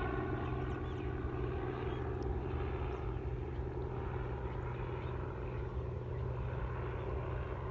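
Steady low engine drone, a motor running at constant speed with a hum of several even tones.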